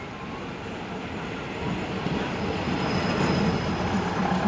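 State Railway of Thailand diesel passenger train pulling into the platform, its engine and wheel rumble growing steadily louder as it nears. A thin high squeal comes in briefly around the middle.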